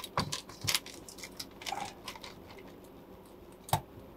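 Foil-faced sound-deadening mat crinkling as it is pressed and rolled onto the car's floor pan with a roller tool: a scatter of small clicks and crackles, with one sharper click near the end.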